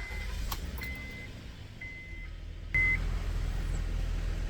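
2009 Honda Odyssey's dashboard warning chime beeping about once a second, four times. Near the end a steady low hum comes on suddenly as the van is switched on.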